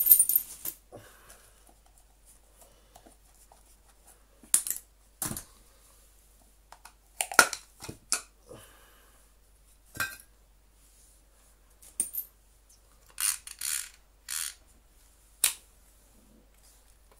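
Scattered clicks, knocks and short scrapes of hard plastic and metal parts being handled while a Miele vacuum cleaner motor is dismantled by hand: a cordless drill set down at the start, then the motor's plastic housing worked loose and its carbon brushes pulled out. A few longer scraping sounds come about three-quarters of the way through.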